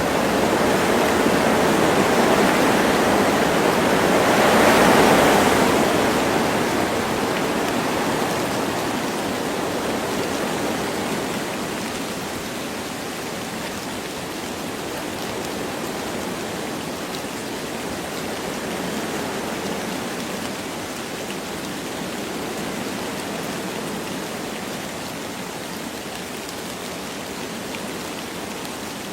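Wind blowing through forest trees with light rain, a steady rushing noise. A gust swells to a peak about five seconds in, then eases back to a steadier, softer rush.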